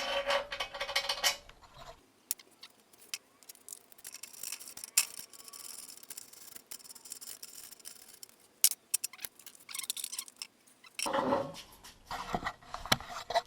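Scattered light clicks and taps from something being handled, with quiet stretches between them and a few sharper clicks about five seconds in and near nine seconds.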